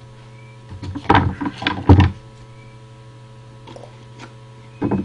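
Rustling and knocking from hands sealing the open end of a bean-filled cardboard rain-stick tube, in a cluster of loud bursts about a second in and again briefly near the end, over a steady low mains hum.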